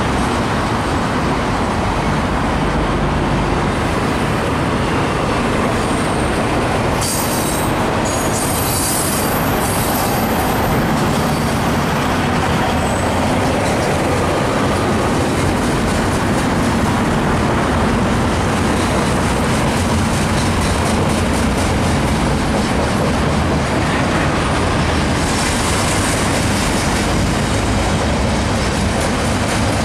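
CN 108 double-stack intermodal freight train rolling past: a loud, steady rumble of wheels on rail, with high wheel squeal about seven seconds in and again about twenty-five seconds in.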